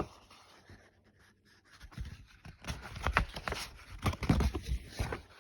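Soft paper rustling and light handling knocks, as a picture-book page is turned, starting about two seconds in after a short near-silence.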